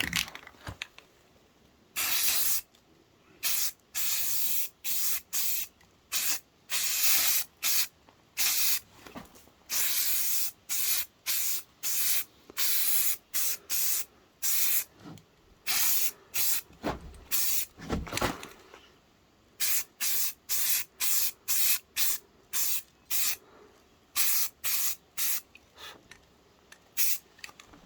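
Spray can of red oxide primer spraying in many short hissing bursts, each a second or less, with a couple of dull knocks about two-thirds of the way through.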